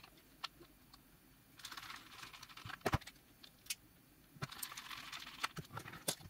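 Hands handling wires, connectors and a plastic tool housing on a workbench: faint rustling in two stretches, with scattered light clicks and taps of plastic and metal.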